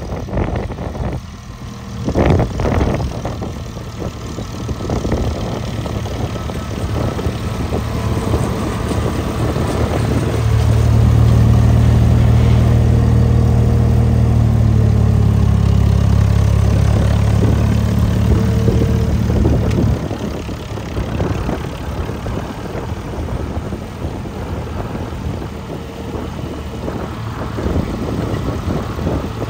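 Ford 4000 tractor engine running as the tractor drives across grass. It grows louder and deeper as it passes close, from about a third of the way in, and drops back after about two-thirds.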